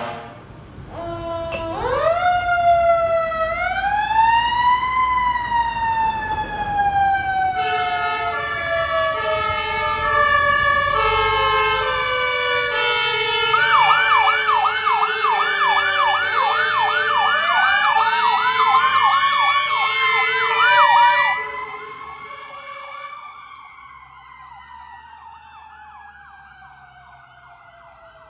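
A fire engine's Q-siren (mechanical) winds up and then slowly coasts down in pitch. From about a quarter of the way in, its Martin two-tone horns join, alternating high-low notes. About halfway through, a much faster sweeping siren tone is added, and the whole sound drops sharply after about three quarters of the way, fading as the truck drives away with the Q-siren winding down.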